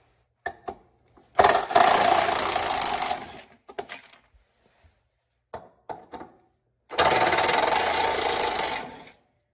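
Cordless 1/4-inch impact driver hammering out two bolts from a plastic underbody cover: one burst of about two seconds, then a second after a pause, with a few small clicks between.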